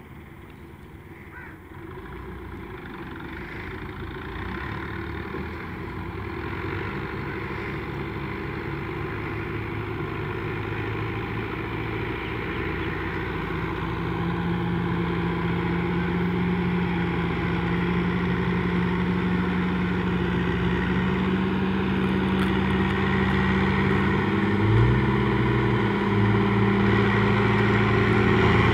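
Farm tractor's diesel engine running steadily as it hauls a heavily loaded sugarcane trolley, growing steadily louder as it approaches. Near the end the engine note shifts briefly.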